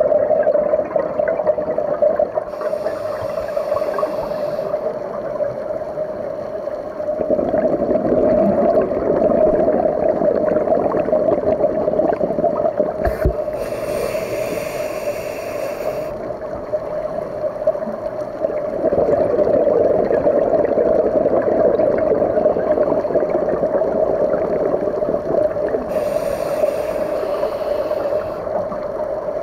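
Underwater recording from a scuba diver's camera: a steady hum with a crackly background, and three times a rush of the diver's exhaled regulator bubbles, each about two seconds long.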